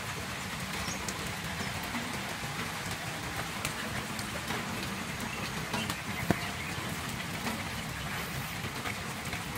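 Tabby kitten purring steadily while its chin is scratched, a low, even rumble under a faint hiss, with a single click about six seconds in.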